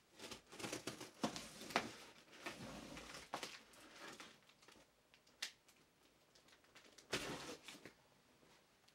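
A long cardboard shipping box being handled and worked open by hand: irregular scraping and rustling of cardboard and packing tape. There is a sharp click about halfway through and a louder scrape near the end as the box is shifted.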